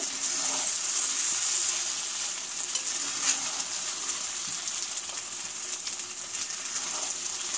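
Washed rice frying in hot spiced oil in a pan, a steady sizzling hiss, while a spatula stirs and scrapes through it now and then. The rice is being fried in the masala until the grains separate, before the water is added.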